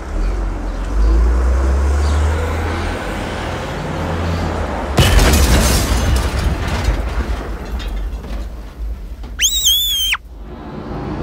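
Vehicle crash sound effect: a low engine and traffic rumble, then a sudden loud crash and blast about five seconds in, with crackling debris after it. Shortly before the end a brief high wavering tone sounds.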